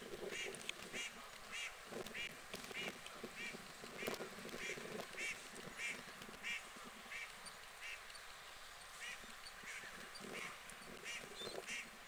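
A water bird calling with short, evenly repeated notes, a little under two a second, over faint background noise.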